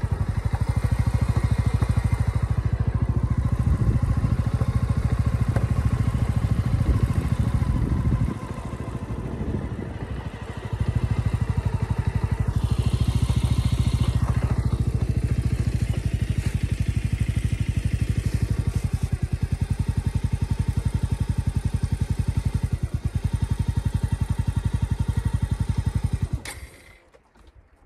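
Motorcycle engine running while riding, easing off briefly about a third of the way through, then picking up again. The sound cuts off suddenly near the end.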